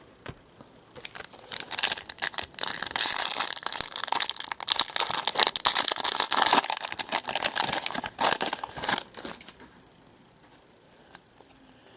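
Foil wrapper of a trading-card pack being torn open and crinkled. The crackling starts about a second in and stops about nine seconds in.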